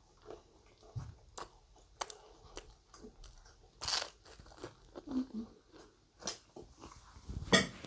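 Close-up eating sounds: bites and chewing with scattered crunches and wet mouth clicks. There is a bigger bite into a bread pizza bun about four seconds in, and the loudest crunch comes near the end.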